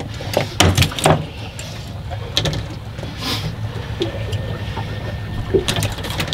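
Fishing boat at sea: a steady low hum, with scattered knocks and clatter on deck, a few of them sharp.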